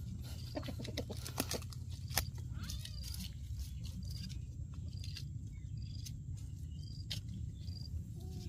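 Cat mewing faintly now and then over a steady low rumble, with a run of sharp clicks in the first two seconds and a short high chirp repeating about once a second.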